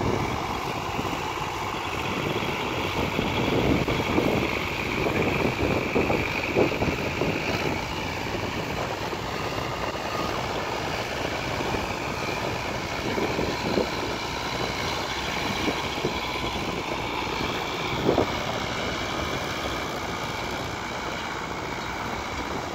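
Engines of Fiat tractors (a 640 DT and a 415) running steadily under load as they pull disc harrows through ploughed soil.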